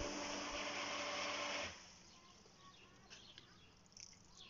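Pump-fed garden hose spray nozzle hissing as a jet of water sprays out under pressure, with a steady hum underneath. It cuts off sharply under two seconds in as the nozzle is shut.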